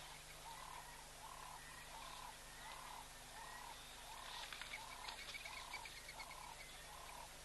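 An animal's short call repeated evenly, about three every two seconds, with a brief high chattering about halfway through.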